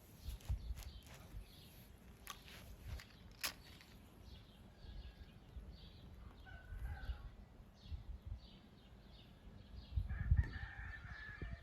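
A rooster crowing twice, a short call about the middle and a longer, louder one near the end, with scattered faint clicks in between.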